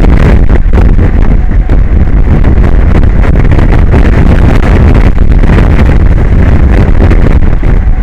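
Strong wind buffeting the microphone: a loud, steady rumble heaviest in the low end.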